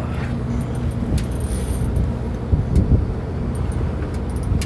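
A fishing boat's motor running with a steady low hum, with a few dull thumps about two and a half to three seconds in and some light clicks.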